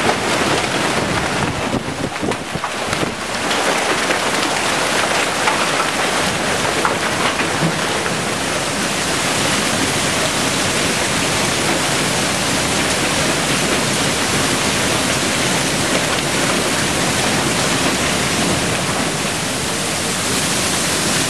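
Heavy hailstorm with ice-cube-sized hailstones pelting down: a dense, steady hiss of countless impacts that does not let up.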